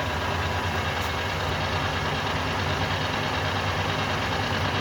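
Harrison M390 geared-head engine lathe running steadily at 190 RPM with the cross slide moving under power feed: an even hum from the headstock gearing, with a faint click about a second in.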